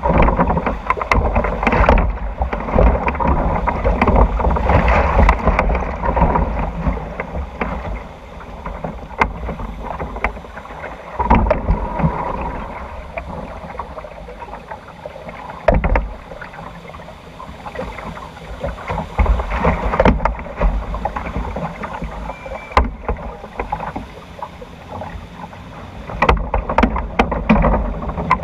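Log flume boat floating along its water trough: water sloshing and rushing around the log, with frequent sharp knocks and wind buffeting the microphone. It is louder at first, quieter through the middle, and louder again near the end.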